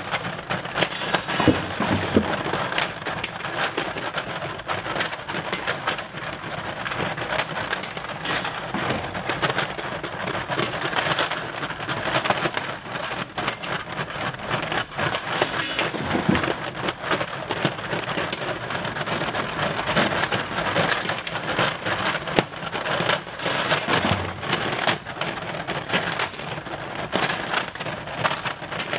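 Stamped steel parts clinking and clattering continuously, a dense stream of small metallic clicks, as a magnetic incline conveyor belt draws them up out of a steel hopper.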